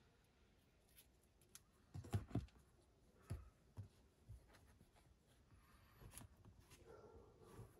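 Faint handling sounds of scissors and a small paper-backed repair patch: a few light clicks and taps, the loudest a quick cluster about two seconds in, then scattered softer ones.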